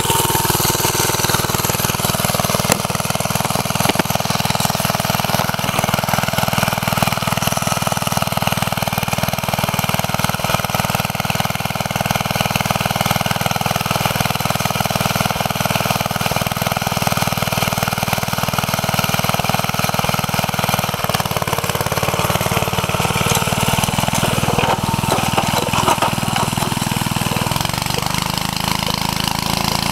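The engine of a 1949 Bready walk-behind tractor running steadily under load as it pulls a disc harrow through the soil.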